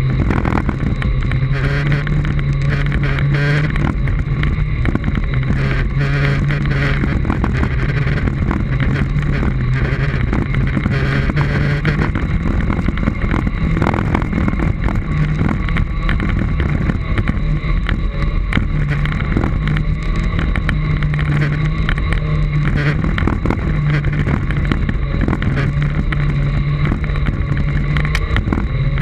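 Off-road Segway riding along a dirt forest track: a steady low motor hum that steps up and down in pitch as the speed changes, over the rumble of the tyres on the dirt and scattered knocks from bumps.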